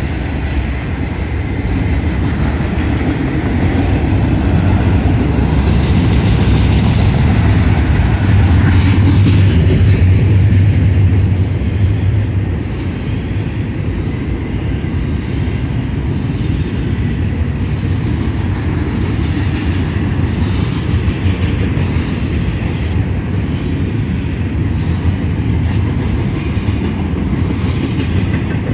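Florida East Coast Railway freight train of autorack and double-stack container cars rolling steadily past, its wheels rumbling and clicking over the rails. Sharp clicks come through now and then, more often near the end.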